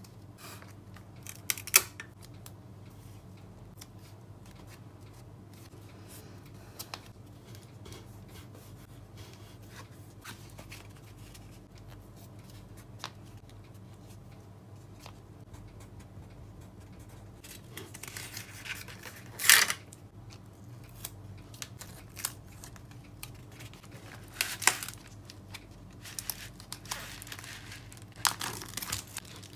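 Washi tape pulled and torn off in short, sharp rips and pressed onto a kraft cardboard card protector. The loudest rip comes a little past halfway. Near the end, a plastic bubble mailer crinkles as the package is handled into it.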